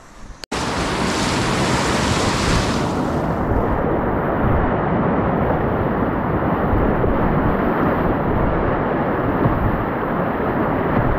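Whitewater of a river rapid rushing steadily and loudly close around a kayak, starting abruptly about half a second in, with low rumbling on the microphone.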